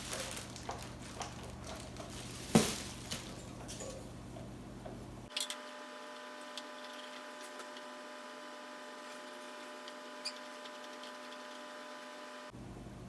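Handling noises of unpacking the air compressor's parts: scattered small clicks and rustles, with one louder knock about two and a half seconds in. The second half is quieter, a faint steady hum with a few light ticks.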